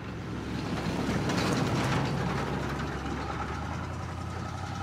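Car engine idling with a steady low rumble. It grows louder for the first two seconds and then eases back.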